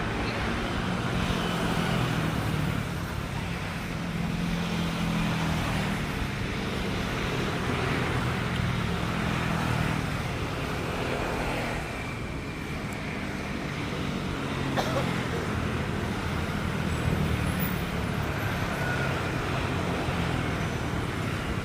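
Jet airliner taxiing with its engines at idle: a steady rumble with a low hum.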